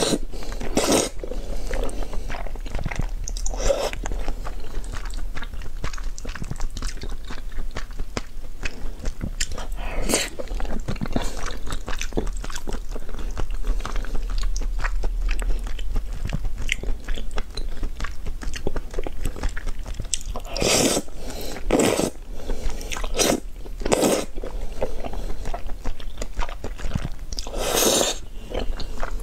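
Close-miked mukbang eating of black-bean-sauce noodles: wet chewing and small mouth clicks throughout, broken by short loud slurps of the noodles, a cluster of them about two-thirds of the way in and another near the end.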